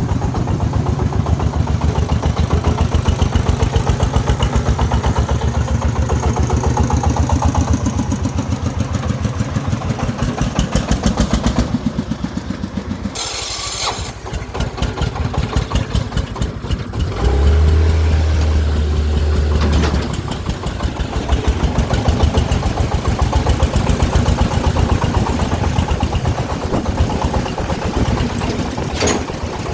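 Diesel engine running with a rapid, even chugging pulse, dipping briefly a little before halfway and then swelling into a louder low hum for a couple of seconds before settling back.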